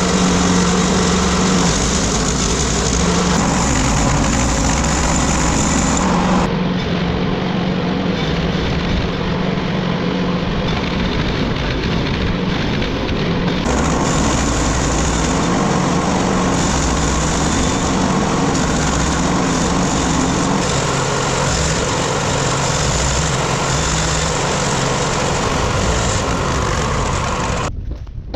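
Small wood chipper's engine running steadily at a constant speed, with a dense mechanical rush over it; the sound changes character for several seconds in the middle and cuts off abruptly near the end.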